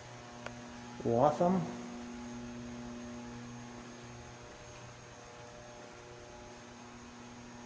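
Steady electrical mains hum with several overtones and a faint high-pitched tone above it.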